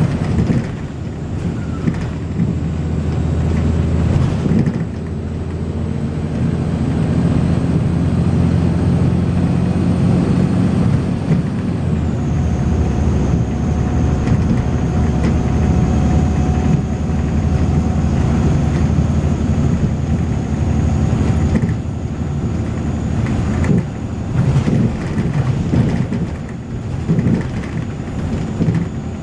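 Volvo B6LE bus's six-cylinder diesel engine working hard under way, with a thin, strange high-pitched whine over it that steps down in pitch about twelve seconds in as the engine note changes.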